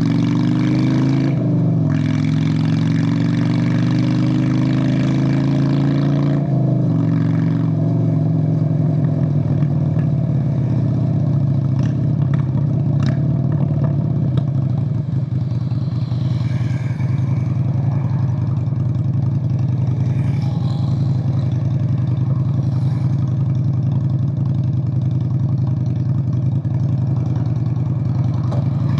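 Straight-piped V-twin of a 1997 Honda Steed VLX 600 (Shadow 600) motorcycle: the engine note climbs in pitch, drops back about a second and a half in, climbs again until about six seconds in, then drops and runs steadily at lower revs for the rest.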